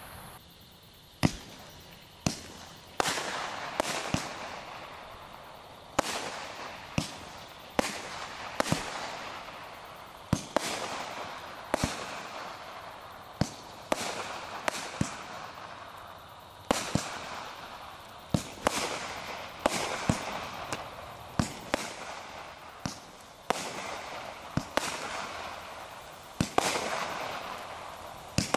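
Consumer fireworks multishot cakes firing shot after shot, about one a second. Each shot is a sharp pop followed by a hiss that fades before the next.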